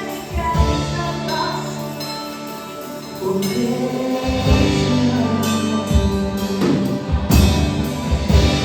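Gospel worship music: voices singing long held notes over band accompaniment, with several heavy drum beats.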